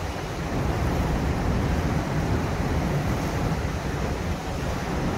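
Steady, choppy low rumble of wind buffeting the microphone.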